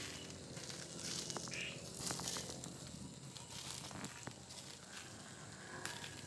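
Mud clams grilling in their open shells over glowing charcoal: the juices and basting sauce sizzle in irregular hissing spells, with a few faint pops from the fire.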